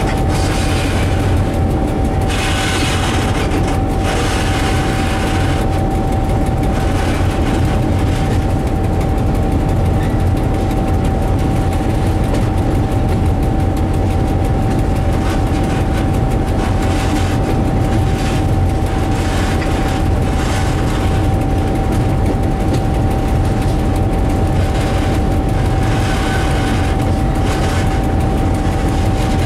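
Diesel locomotive running along the line, heard from its cab: a steady low engine drone with a constant high-pitched whine over it. Patches of rail clatter come near the start and again near the end.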